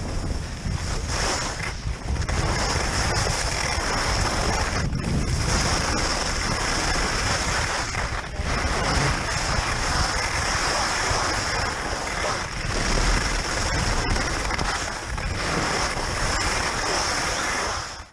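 Wind buffeting the microphone during a downhill ski run, over the steady hiss of skis sliding on snow: a continuous loud rush with brief dips about five and eight seconds in.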